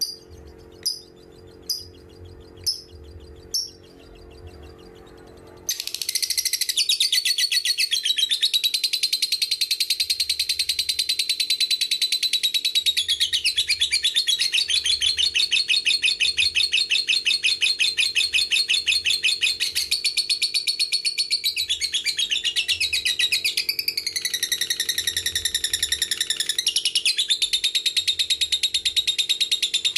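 Lovebird calling: single short high chirps about once a second, then from about six seconds in a long unbroken rapid chattering trill, the 'ngekek panjang' that fanciers prize, shifting in pitch a few times.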